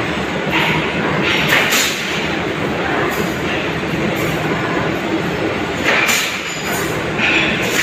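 Forklift engine running steadily as it lowers a load of concrete railway sleepers onto a truck. A few short scrapes of the load come near the start, at about a second and a half, and twice near the end.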